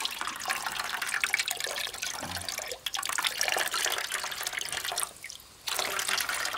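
Starchy water trickling and splashing from a wrung cloth bag of pounded cây đao pulp into a metal basin of liquid, as the starch is squeezed out. The trickle dies away briefly about five seconds in, then resumes.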